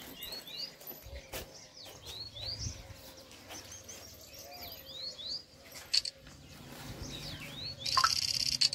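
Small birds chirping over and over with short rising calls. Near the end a loud, fast rattle cuts in for under a second.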